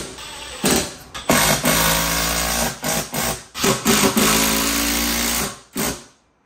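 Cordless drill running under load: a few short trigger pulses and two longer runs of about one and a half to two seconds each, with a steady motor whine, stopping about six seconds in.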